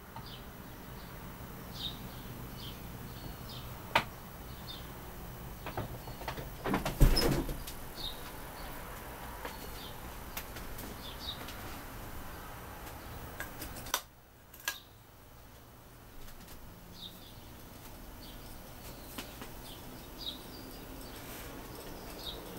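Vintage SMC Laguna ceiling fan with a low, steady motor hum, joined by short high chirps that recur irregularly and a few clicks. A louder knock comes about seven seconds in.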